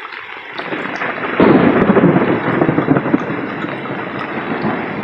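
Thunderstorm noise: rain with a loud swell that rises suddenly about a second and a half in and dies away over a few seconds.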